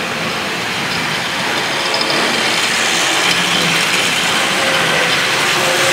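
Hornby/Tri-ang OO gauge model trains running on the layout track: a steady whirr of small motors and wheels on rail, growing louder about two seconds in as a small red tank locomotive with a short goods train passes close by.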